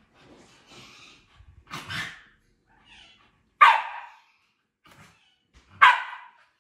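A dog barks up at light reflections on the ceiling: a softer bark about two seconds in, then two loud, sharp barks, one about midway and one near the end.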